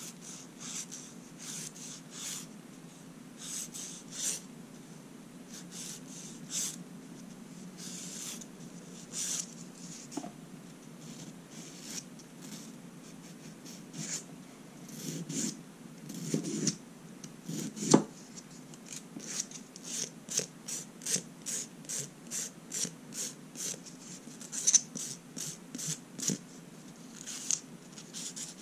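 Fingernail being filed in short rasping strokes, sparse at first and then quickening to about two strokes a second, with one sharp knock about two-thirds of the way through. A steady low hum runs underneath.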